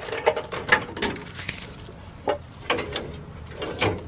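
Irregular metallic clicks and scrapes, about eight over a few seconds, as a steel brake line is worked and jiggled through the truck's chassis past the suspension parts it catches on.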